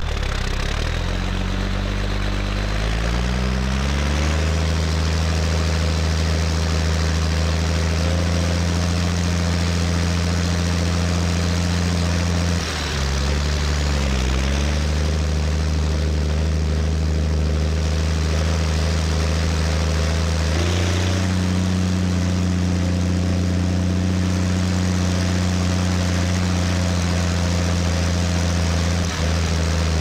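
Turbocharged Zetor tractor diesel engine running under way. The revs climb over the first few seconds and then hold steady, dip briefly about thirteen seconds in, and step up again about twenty seconds in.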